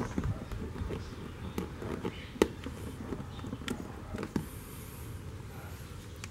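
Scattered light clicks and taps as clear plastic tubing is worked onto a small metal nozzle, over a steady low rumble; the sharpest click comes about halfway through.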